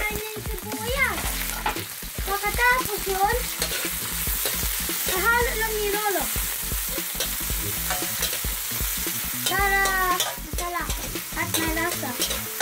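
Chopped onion sizzling in hot oil in a steel wok, stirred with a metal ladle that scrapes across the pan, giving several short squeals.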